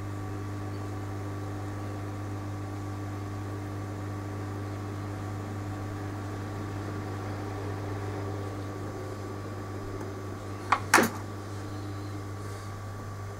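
Steady electrical hum of workbench equipment, with two sharp clicks close together about eleven seconds in.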